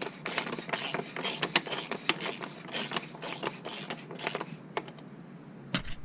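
Socket ratchet clicking in a quick, even rhythm, about four clicks a second, as the oil filter cap is threaded back down. The clicking thins out and stops near the end.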